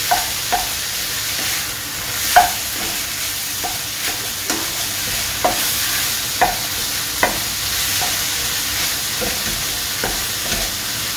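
Minced beef with onion and tomato sizzling in a stainless steel frying pan, stirred with a wooden spatula that knocks against the pan roughly once a second, each knock with a brief ring.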